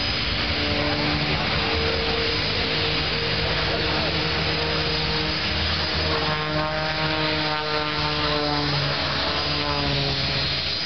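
Single-engine propeller aerobatic plane flying overhead, its engine making a steady drone.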